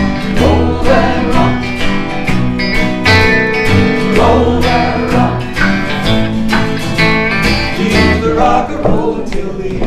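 Acoustic folk song: an acoustic guitar strummed in a steady rhythm with bass notes, in a country-bluegrass style.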